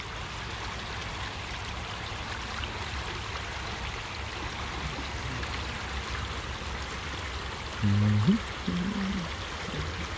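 Creek water flowing, a steady even rush. About eight seconds in, a man briefly hums or murmurs in a low voice.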